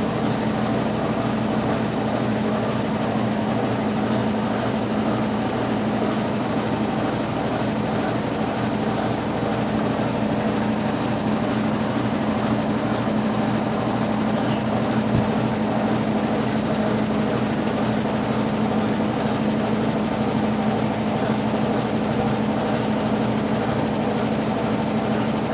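Consul Facilite 10 kg top-loading washing machine in its wash stage, agitating a load of clothes with a Brastemp BWL09 agitator: a steady motor hum over a churning wash.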